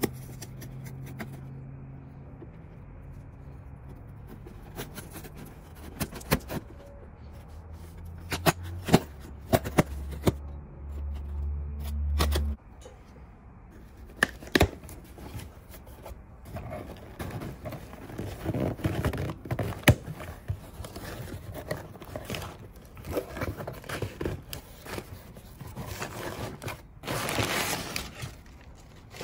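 Packing tape on a cardboard box being slit with a folding knife, then the flaps pulled open and tissue paper packing rustled and lifted out, with scrapes, clicks and knocks of cardboard. A low hum runs under the first twelve seconds, swells and stops suddenly.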